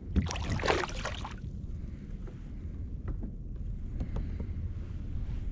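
Water splashing for about a second as a small speckled trout thrashes at the surface beside the kayak, followed by a steady low wind rumble on the microphone and a few faint ticks.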